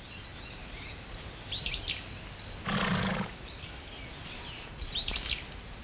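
A white horse gives one short, loud call about three seconds in, with faint high chirps twice in the background.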